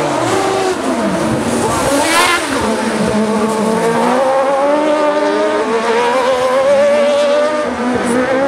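Buggy1600 autocross buggies racing on a dirt track: several engines at once, their pitch rising and falling as the drivers rev up and lift through the corner.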